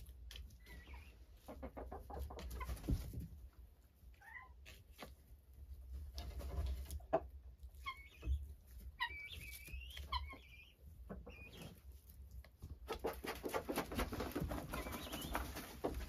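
Mixed flock of chickens and guinea fowl in a coop: scattered short clucks and chirping calls. A spell of rustling in the straw comes in near the end.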